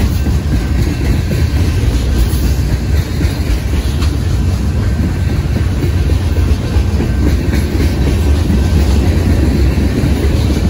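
Freight train's centerbeam flatcars loaded with lumber rolling past: a steady loud rumble with wheels clacking on the rails.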